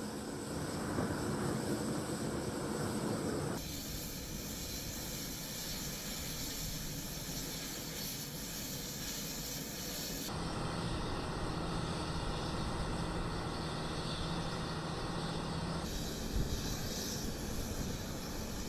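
Steady mechanical engine noise with a hiss, changing abruptly three times as the footage cuts between shots.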